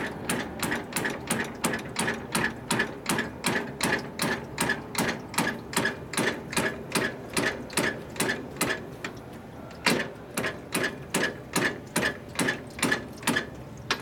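Steady mechanical clicking, about three clicks a second, as a 1953 Harley-Davidson Panhead is turned over slowly by hand to set the ignition timing. The clicking breaks off briefly a little past the middle, comes back with one louder click, and stops near the end.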